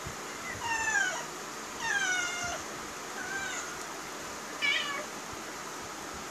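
A domestic cat meowing four times, short calls mostly falling in pitch, begging for food during a meal.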